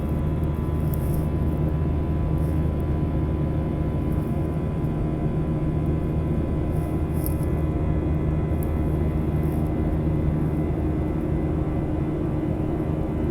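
Airliner cabin noise: a steady jet engine and airflow drone, with a few steady humming tones in it and no change in level.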